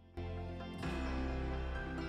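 Background music of sustained, held notes, starting just after the opening moment and getting louder a little under a second in.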